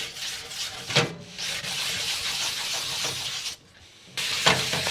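Sandpaper rubbed back and forth by hand over the filled surface of a carbon-fibre rudder blade: wet sanding, working the filler into a paste. A steady gritty scratching that breaks off for about half a second near the end.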